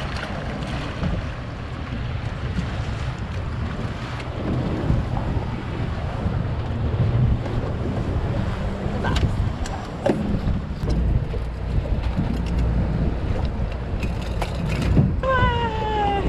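Wind buffeting the microphone and choppy water against a small boat's hull, over a low steady rumble. Near the end a short falling tone sounds briefly.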